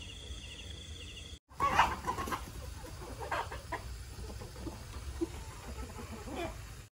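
A flock of chickens clucking, with a louder call about two seconds in. Before that, for the first second or so, faint insects chirping in a steady rhythm.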